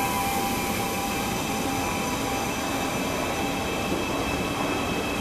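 Siemens Desiro Classic electric multiple unit rolling slowly along the platform as it comes in to stop: a steady running rumble with several thin, high steady tones over it.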